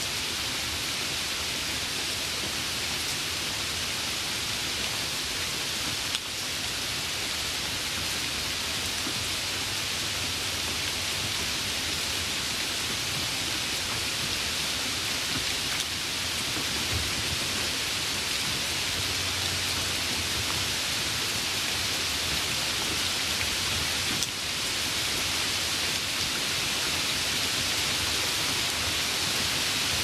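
Steady rain falling, a continuous even hiss of drops with no break.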